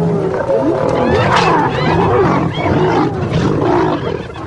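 A fight over a carcass between spotted hyenas and lions: many hyena calls rising and falling over one another, cackling and whooping, over the low growls and snarls of lions.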